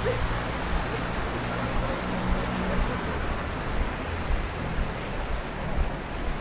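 Steady rush of water flowing in an urban stream, with a faint low hum underneath.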